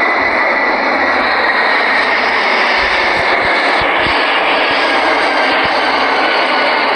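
Airliner jet engines running: a steady, loud rushing noise with a faint high whine that sinks slightly in pitch, and a few low bumps in the middle.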